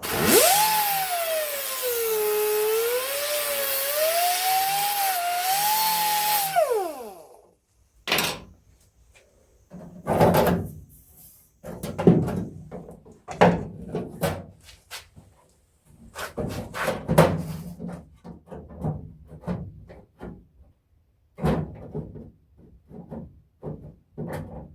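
Handheld power grinder running against sheet metal for about seven seconds, its whine dipping and rising in pitch as it is pressed into the work, then winding down. Short, irregular scraping bursts follow, typical of cleaning up a welded-in patch panel.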